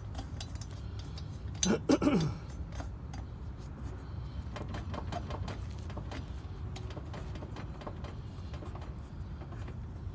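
Lug nuts being spun on by hand onto the wheel studs of a steel car wheel: light metallic clicks and rattles scattered through, over a steady low hum. About two seconds in, a brief loud sound drops in pitch, the loudest thing here.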